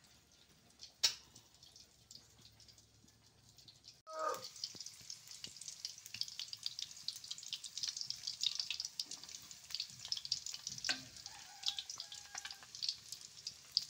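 An egg frying in hot oil in a wok, sizzling and crackling steadily. The sizzling starts suddenly about four seconds in, after a quieter stretch with a single sharp click.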